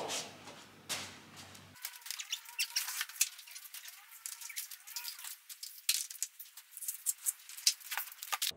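Heavy rubber stable mats being lifted, flopped and shifted on a rubber-matted floor: a couple of sharp knocks, then a fast, thin run of small clicks and scrapes from the handling. The sound loses all its low end abruptly about two seconds in.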